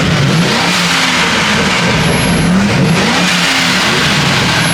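Turbocharged car engine being revved in repeated blips, its pitch rising and falling several times, with a rushing hiss over the top.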